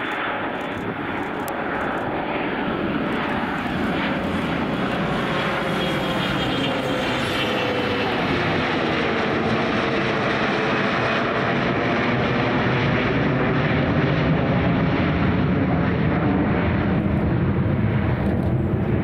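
Large twin-engine business jet climbing out after takeoff with its rear-mounted turbofans at climb power. Its steady rush of jet noise carries slowly falling tones and grows deeper and a little louder in the second half as the jet passes overhead and away.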